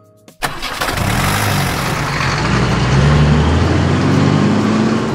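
Vehicle engine sound effect for a cartoon bus pulling away. It comes in suddenly about half a second in and runs loudly, its pitch climbing as it revs up, then starts to fade near the end.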